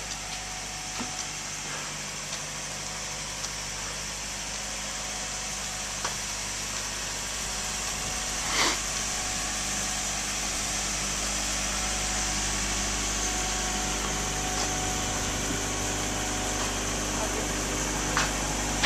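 An engine idling steadily, a low even hum that grows slightly louder in the second half. A few faint clicks, and a brief noise about halfway through.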